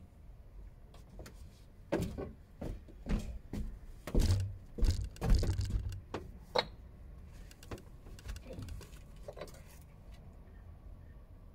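Knocks, thuds and scrapes of hands working bricks and mortar, bunched between about two and seven seconds in, the heaviest thuds around the middle, then a few lighter taps.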